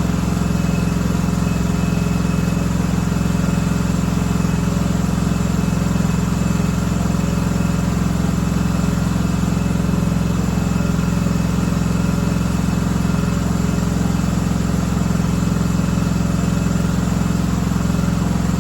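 1976 John Deere 300 lawn tractor engine running steadily at an even speed.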